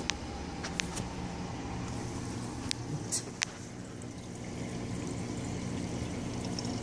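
Saltwater reef aquarium running: a steady wash of circulating water over a low, steady hum, with a few brief sharp ticks near the start and about three seconds in.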